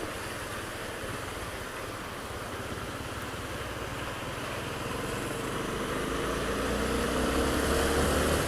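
Honda Twister 250 single-cylinder motorcycle engine running under way, under a steady hiss of wind and tyres on the wet road. The engine note grows gradually louder over the last few seconds.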